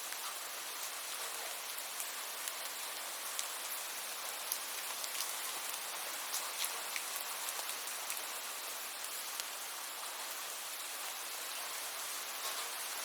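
Steady rain: an even hiss with individual raindrops ticking sharply here and there.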